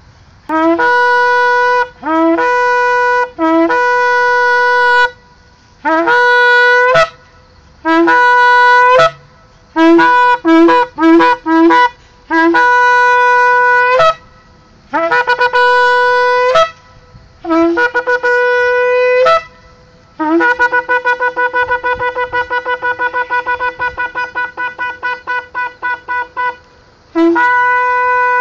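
A long, curved shofar (ram's or kudu horn) blown in a series of blasts, each starting on a lower note and jumping up to the main pitch. About a third of the way in comes a run of quick short blasts, and near the end a long blast that wavers several times a second, followed by one last steady blast.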